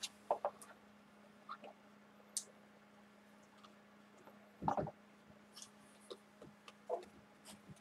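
Hands opening a cardboard hockey card box and handling the cards inside: scattered light clicks and rustles of cardboard, with one louder knock about halfway through, over a faint steady hum.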